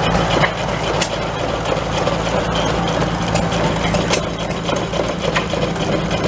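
An engine running steadily at idle, a low even hum, with a few sharp clicks over it.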